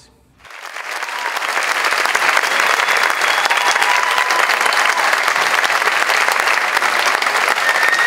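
Audience applause. It swells in about half a second in and then holds steady.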